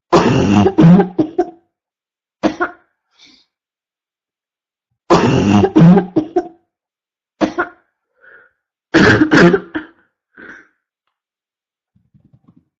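A person's barking cough in three fits a few seconds apart, each a quick run of three or four coughs followed by one or two weaker single coughs.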